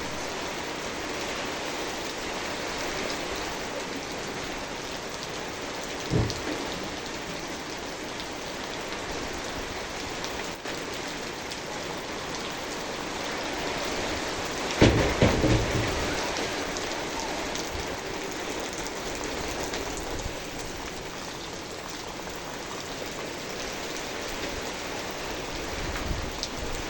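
Steady rain falling on surfaces, with a brief low rumble about 6 seconds in and a louder, longer one about 15 seconds in, as of thunder.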